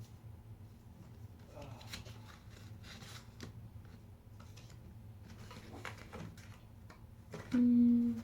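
Faint, scattered rustles and light clicks of things being handled, over a steady low hum. Near the end comes a short, held, voiced 'mm'.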